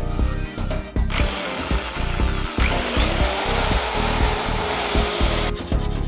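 A power tool runs and cuts into a black plastic part clamped in a vise. It starts with a hiss about a second in, a steady motor tone rises and settles about halfway, and both stop shortly before the end. Background music with a steady beat plays throughout.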